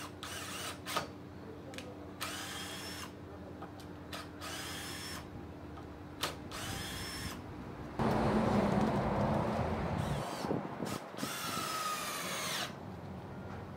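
Total TDLI20025 20 V cordless drill/driver driving a 6 × 60 mm screw into a wooden board in a series of short trigger bursts, the motor's whine dropping in pitch as it comes under load. About eight seconds in comes a louder, rougher stretch of about two seconds, then one last falling burst near the end.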